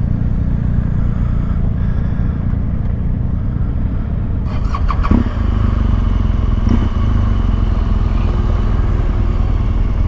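Motorcycle engine running steadily, with a few short clicks about five seconds in.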